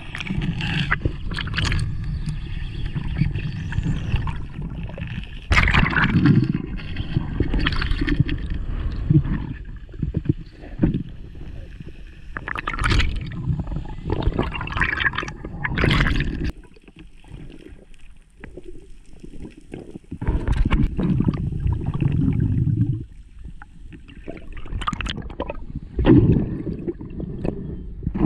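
Underwater water noise on a diver-held camera: water gurgling and rushing past in uneven surges as the diver swims, with a few sharp knocks.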